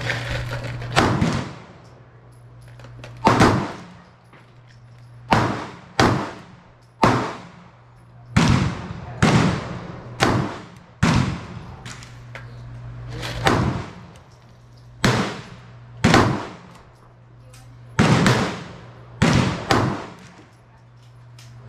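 9mm pistol gunfire: about twenty single shots at an uneven pace of roughly one a second, each a sharp crack with a short echoing tail.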